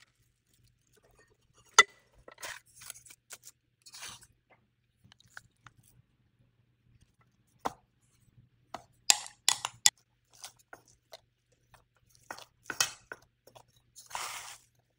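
Food-preparation handling sounds: scattered sharp clicks and taps, with short soft scrapes, and one longer scrape near the end.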